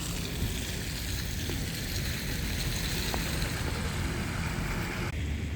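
Steady low rumble and hiss of a car running, with no distinct events.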